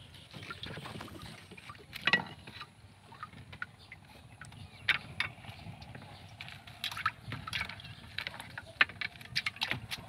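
Scattered sharp knocks and clatter over low water sloshing around a small boat as bamboo prawn traps are hauled up and handled.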